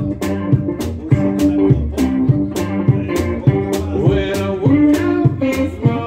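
Live blues instrumental on electric guitar and electric bass, with a steady percussive beat about twice a second.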